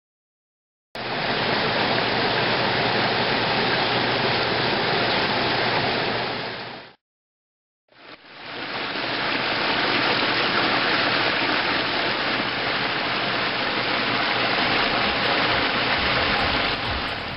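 Steady rush of water from a small rock waterfall cascading over boulders. It fades out about six seconds in and fades back in a second later.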